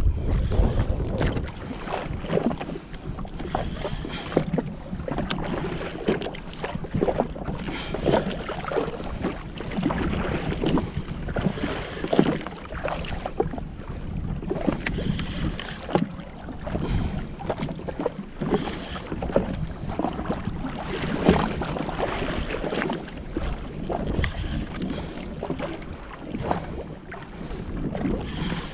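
Jetski on choppy water: water slapping and splashing against the hull in uneven strokes, with wind buffeting the microphone.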